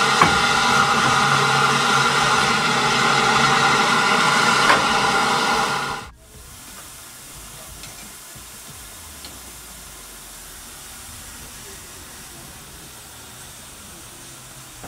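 Steam hissing loudly from SECR H class tank engine No. 263, a steady rushing hiss with a ringing tone in it, which cuts off abruptly about six seconds in and leaves only a much quieter steady background.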